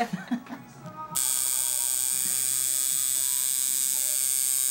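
Electric tattoo machine starting about a second in and buzzing steadily as the needle works ink into the skin.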